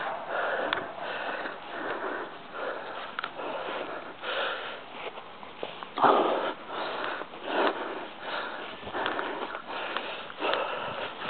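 Heavy rhythmic breathing close to the microphone, about two rough puffs a second, as from a person out of breath while moving.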